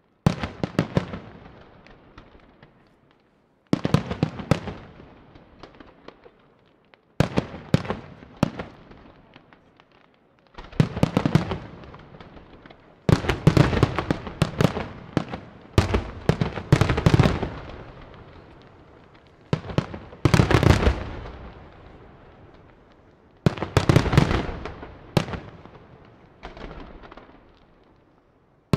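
Aerial fireworks shells bursting in volleys about every three seconds, each a cluster of sharp bangs that dies away over a second or two.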